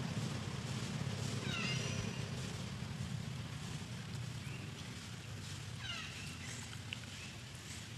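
Macaque calls: two brief, high, sliding calls, about a second and a half in and again about six seconds in, over a steady low rumble.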